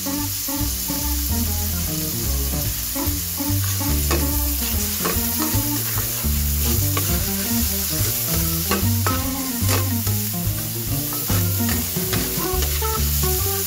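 Food sizzling in hot oil in a nonstick wok while a metal spatula stirs it, scraping and clicking against the pan many times, with background music running underneath.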